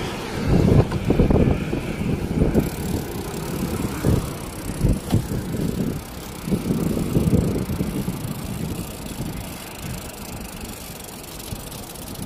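Riding a road bicycle: wind buffeting the microphone in uneven low gusts over steady road noise.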